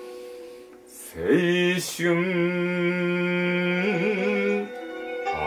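Solo shigin-style chanting: a single voice scoops up into a long held note with a slow wavering bend, then slides up into the next note near the end.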